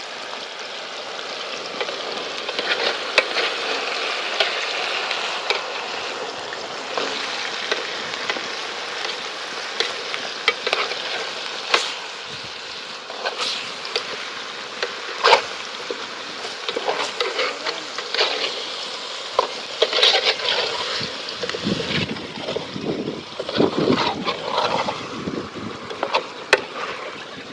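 Food frying in a pan with a steady sizzle, broken by frequent clicks and scrapes of a utensil stirring it; the stirring gets busier near the end.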